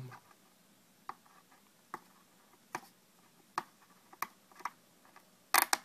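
Plastic protective film being picked at and peeled off a graphics card's plastic shroud, with faint, scattered ticks and crackles. Near the end comes a short, louder clatter of several sharp knocks.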